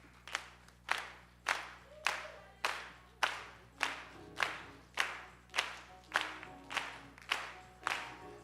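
Steady rhythmic hand clapping in time, about two claps a second, with faint musical notes joining about four seconds in as a gospel choir's song gets under way.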